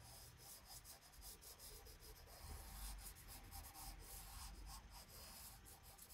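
Faint scratchy rubbing of a chalk pastel stick worked on its side across paper, in many short repeated strokes.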